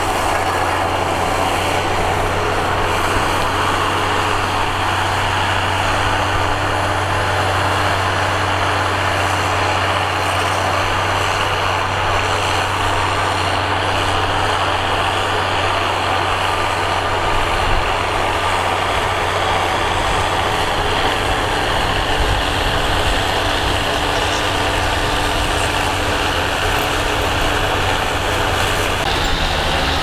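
John Deere farm tractor's diesel engine running steadily under load, pulling a disc harrow through dry soil: a constant low engine drone over a dense rushing noise. The low drone shifts a little past halfway.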